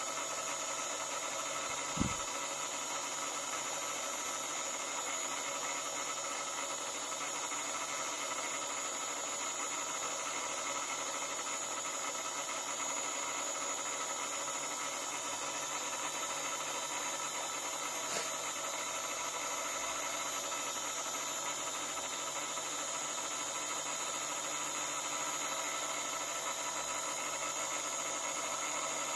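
A machine running steadily with a constant hum and high whine, with a single thump about two seconds in and a faint click later.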